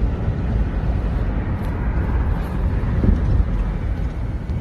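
Steady road and wind noise inside a moving car.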